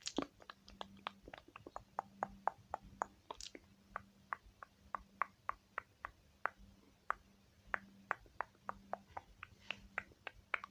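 Rapid, light clicking taps of makeup being blended close to the microphone, about four a second and slightly uneven, over a faint steady hum.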